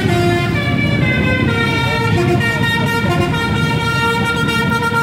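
Multi-tone bus horn (a telolet-style air horn) sounding a held note while shorter notes come and go over it, with road traffic running underneath.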